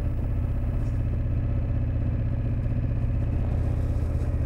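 KTM 1290 Super Adventure's V-twin engine running steadily at low revs, with no revving.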